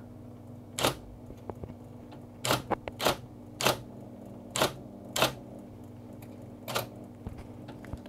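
Electric golfball typewriter with a script type ball typing a word one key at a time: about seven sharp strikes of the ball, slow and unevenly spaced, over the steady hum of its running motor.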